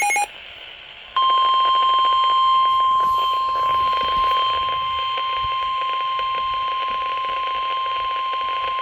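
The end of a short warbling digital header burst, then about a second in the NOAA Weather Radio warning alarm comes on: one steady 1050 Hz tone, held over radio hiss. It signals that a warning broadcast, here a severe thunderstorm warning, is about to follow.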